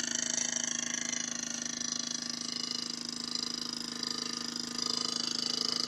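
Mamod Minor 2 model steam engine running steadily, driving a line shaft and a belt-driven VCR-motor generator: a continuous whirring hum with a fast, even beat.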